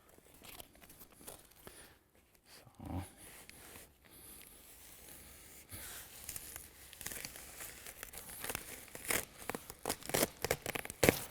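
Release liner being peeled off adhesive sealing tape and the tape pressed and smoothed onto a roof underlay membrane: crinkling, tearing rustles, sparse at first and growing busier in the last few seconds, with a sharp crackle near the end.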